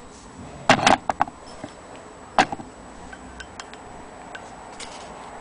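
Wood and metal handling knocks on an antique Willcox & Gibbs hand-crank sewing machine and its wooden base. There is a quick cluster of sharp knocks about a second in, another single knock about two and a half seconds in, then a few light ticks.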